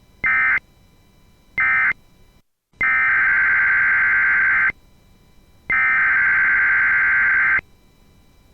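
Emergency Alert System SAME data bursts, a harsh digital screech near 2 kHz. Two short end-of-message bursts close one alert, then a moment of dead silence, then two longer header bursts about a second apart open the next alert.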